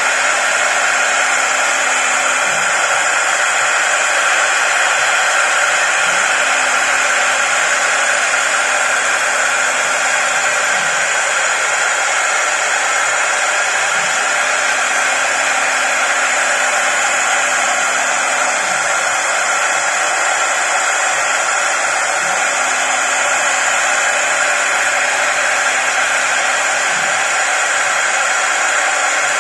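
Mustang MT1530S CNC wood lathe running, its high-speed router spindle cutting a turning wooden baluster with a steady, loud whirring hiss. A faint low hum comes and goes every few seconds beneath it.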